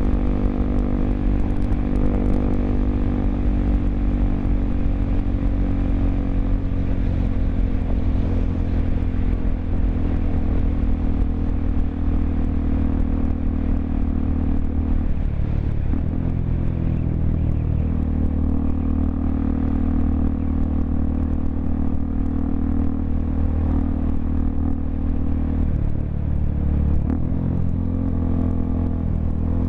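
Honda XRE 300's single-cylinder engine running through a Roncar 2 Way aftermarket exhaust on the move, at steady revs with a brief change in pitch about halfway through and again near the end.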